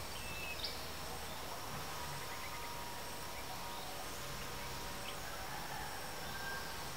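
Quiet outdoor ambience by a forest edge: a steady hiss with a few faint, short high chirps near the start and a small click just after half a second in.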